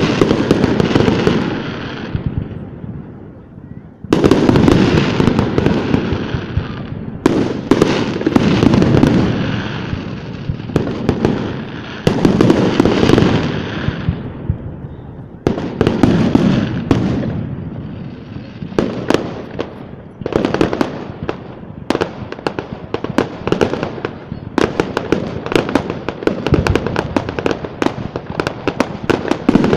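Fireworks display: aerial shells burst one after another, each a sudden boom followed by a long rumbling decay, and near the end a dense run of rapid crackling reports takes over.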